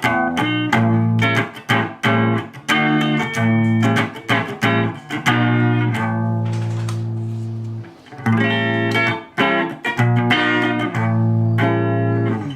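Electric guitar on the bridge pickup, strummed chords played through a homemade Ibanez TS-9 Tube Screamer–style overdrive pedal into a tube amp's clean channel. The pedal's drive is at minimum and its output just below the point of overdriving the amp, so the tone is mostly clean, with a little overdrive on the last strum. A series of quick strums, with one chord left ringing for about two seconds midway.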